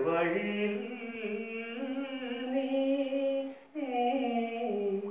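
A man singing unaccompanied, holding long notes with slow slides in pitch, with a short breath break a little under four seconds in.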